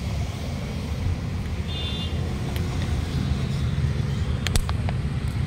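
Steady low rumble of road traffic, with a few faint clicks about four and a half seconds in.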